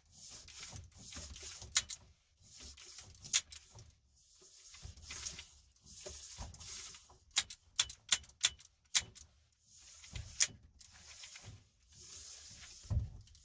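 Seatbelt webbing sliding out of and back into a shoulder-belt retractor in repeated pulls lasting one to three seconds each, with sharp clicks from the mechanism. There is a quick cluster of clicks about seven to nine seconds in. The retractor's spring tension has just been backed off about a quarter turn and is being tested.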